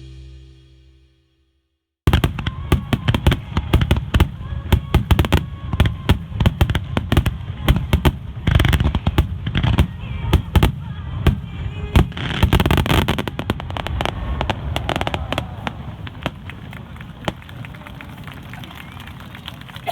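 Background music fades out, and about two seconds in a star mine fireworks barrage begins: a rapid, dense run of bangs and crackles from aerial shells, thinning out over the last several seconds into scattered pops and a crackling rumble.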